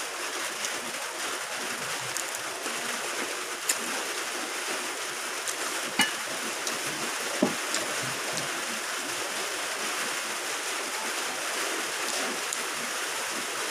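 Eating by hand: a few short wet clicks and smacks of chewing and handling sticky rice, the sharpest about halfway through, over a steady rushing hiss of background noise.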